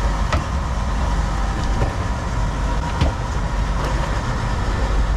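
Fishing boat's engine running steadily under wind and water noise, with a few sharp knocks on deck, once about a third of a second in and again around three seconds in.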